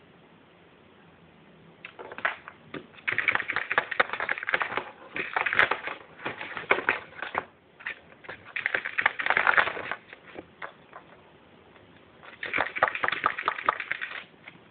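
Holland Lop rabbit digging at the carpet with her front paws, claws scratching in quick strokes. The scratching comes in three bouts: the first starts about two seconds in, a shorter one follows, and the last comes near the end.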